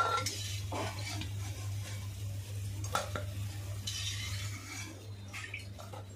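Steel slotted skimmer scraping and clicking against an iron kadhai as fried dough balls are lifted out of the hot oil onto a steel plate, with a few sharp clinks and a faint sizzle of the oil, over a steady low hum.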